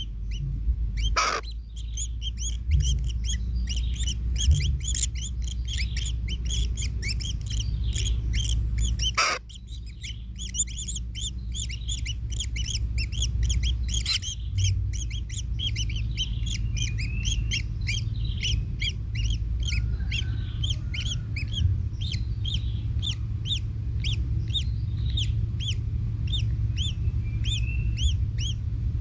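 Baby kingfishers in the nest calling: a steady run of short, high chirps, about two a second, over a low steady rumble. A few sharp clicks come in the first half.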